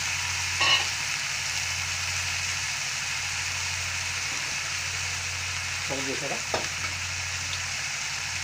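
Chopped green chillies, carrots, beans and capsicum sizzling steadily in hot oil in a metal kadai, a vegetable stir-fry under way.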